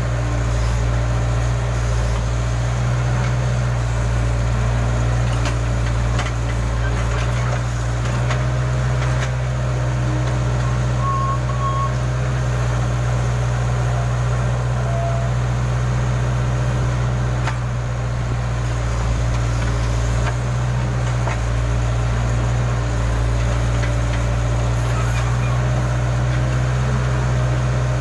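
Case backhoe loader's diesel engine running steadily, with a few faint clinks now and then.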